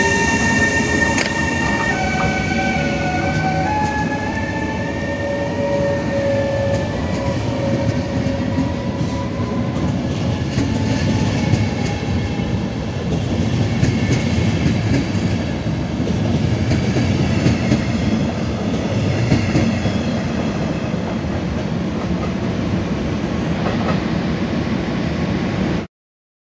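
RegioJet's class 388 Bombardier TRAXX electric locomotive pulling a passenger train away. The traction converter whines in several tones that step up in pitch over the first few seconds and then fade, under the steady rolling noise of the coaches on the rails. The sound cuts off suddenly near the end.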